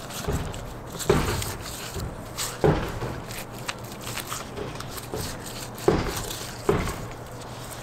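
A gloved hand rubbing and patting the inside of a raw, butterflied whole pig on a cardboard-covered table: soft rustling and smearing with a few sharp slaps, loudest about a second in and again near the end, over a steady low hum.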